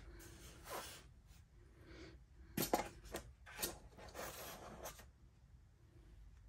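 Hard plastic parts of an LK150 knitting machine being handled: a run of short scrapes and clicks as a yellow plastic strip is lifted out, the loudest near the middle, stopping about five seconds in.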